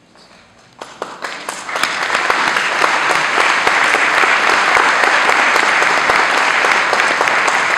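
Congregation applauding: a few scattered claps about a second in, swelling within another second into full, steady applause.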